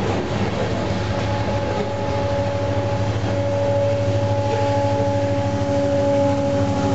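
Freight train of covered hopper cars rolling past close by, a steady rumble of wheels on rail. About a second in, a steady high whine joins it, made up of several held pitches, and it grows a little louder toward the end as a locomotive within the train draws near.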